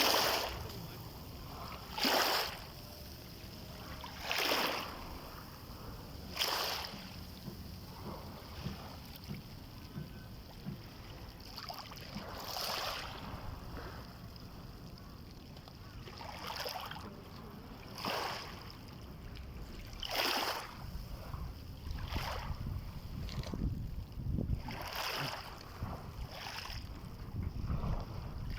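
Small sea waves splashing against the shore at irregular intervals of a couple of seconds, over a steady low rumble of wind on the microphone.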